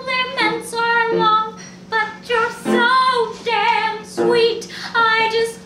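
A woman singing a song, held melodic phrases with short breaths between them, over a steady low hum.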